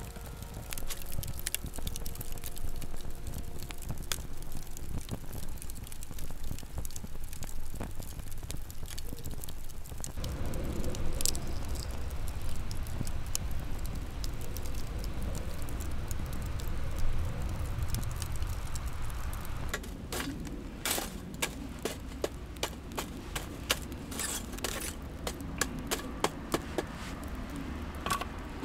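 Wood fire burning in a small stainless-steel fire pit: a steady low rush of flame with scattered crackles and pops, the sharp pops coming thick and fast in the last third.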